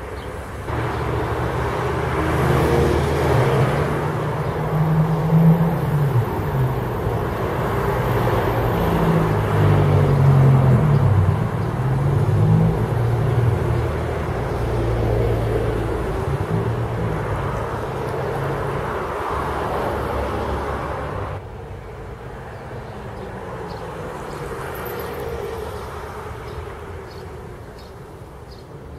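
Motor vehicle engine running close by, its pitch rising and falling, then dropping away suddenly about two-thirds of the way through to a quieter background hum.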